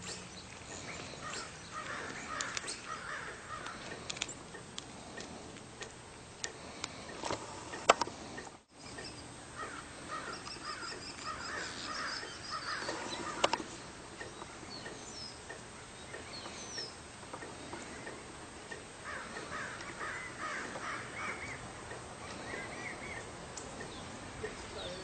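Birds calling outdoors in three bursts of short repeated notes, with a few higher chirps between them. A few sharp clicks or knocks come about seven to eight seconds in.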